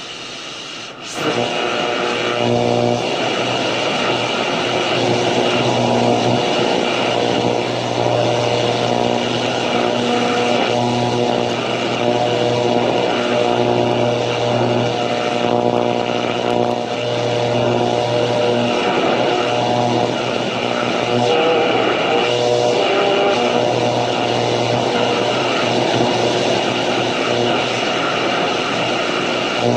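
Static from a 1968 Panasonic RE-6518 transistor radio on the AM band, its dial turned between stations. A steady hiss with a low hum and several held tones comes in about a second in and carries on.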